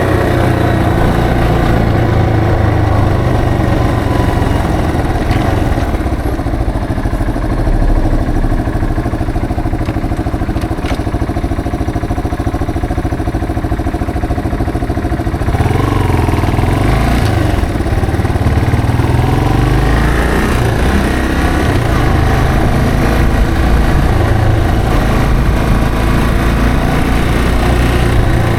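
Yamaha TW225's single-cylinder four-stroke engine running steadily under way, its note rising about halfway through and again a few seconds later as the revs climb.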